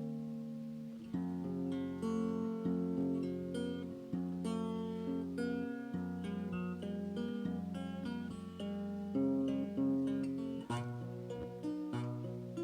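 Acoustic guitar in an open tuning, chords picked and strummed and left to ring, changing about once a second.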